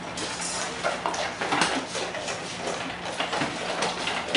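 Several dogs eating from metal bowls: a run of irregular clinks and scrapes as muzzles knock and push the bowls, with chewing mixed in.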